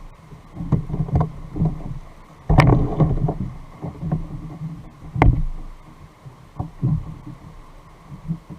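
Knocks and thumps on a kayak as fishing gear is handled aboard, irregular, with two louder thumps about two and a half and five seconds in.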